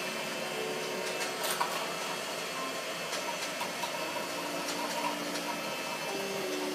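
Electric handheld massager motor running, its hum stepping in pitch now and then, with a few light clicks.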